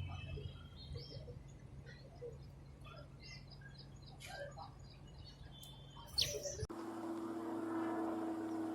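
Small wild songbirds chirping and calling in short scattered notes, with one sharp rising whistle about six seconds in. Shortly after, the sound cuts abruptly to a steady hum with a noisy hiss behind it.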